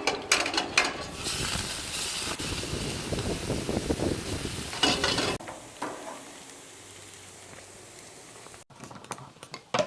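Stir-fry sizzling in a hot pan while being stirred, with scraping and clicking from the utensil against the pan. About halfway through, the sizzle drops off abruptly to a fainter hiss.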